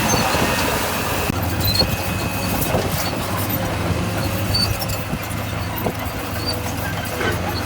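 Diesel engine of heavy earthmoving machinery running steadily under work, with a high squeal in roughly the first second and scattered small metallic clicks.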